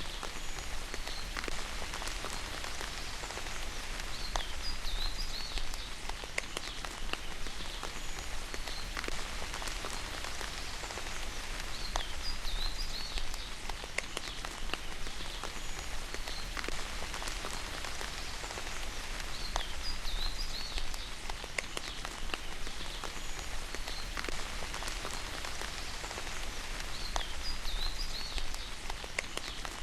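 Steady rain with scattered drops tapping, and a bird giving short, curling chirps every several seconds.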